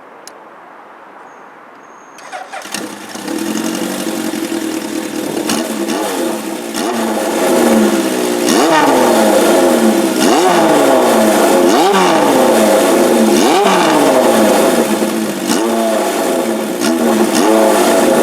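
Honda CB 750 Four air-cooled inline-four engine with a four-into-one exhaust starting about two seconds in and settling to a loud running note. From about a third of the way in it is revved again and again, each blip rising sharply in pitch and then falling back.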